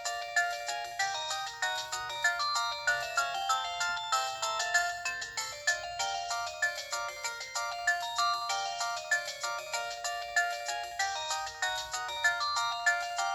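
A built-in ringtone playing on an LG VX4500 flip phone: a fast melody of many short, bright notes.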